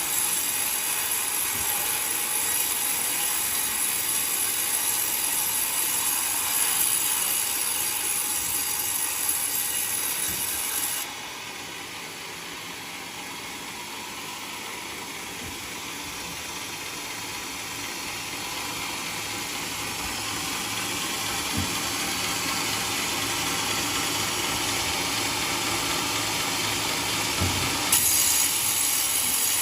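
A sawmill running and cutting through coconut wood, a steady mechanical noise with a high hiss; the hiss and overall level drop away for much of the middle and come back near the end.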